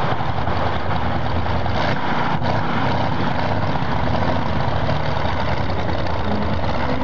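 V12 Continental tank engine of a modified pulling tractor running steadily, an even low rumble with no revving up or down.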